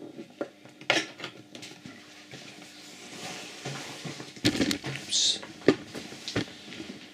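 Handling noise: a few sharp clicks and knocks as the plastic battery charger and its mains lead are handled to power it up, with a brief scrape about five seconds in.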